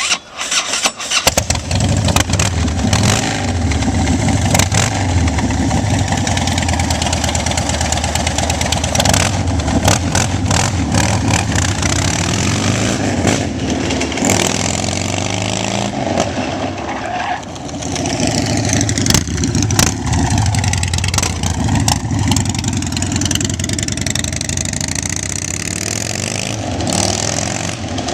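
Custom motorcycle engine cranked and started about a second in, then running loud and revved up and back down a few times in the second half.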